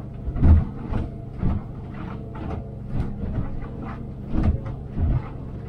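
A 200-horsepower outboard running steadily at cruising speed, heard from inside the pilothouse cabin. The hull slams and knocks irregularly as the boat pounds through short, choppy waves, with the thumps louder than the motor's hum.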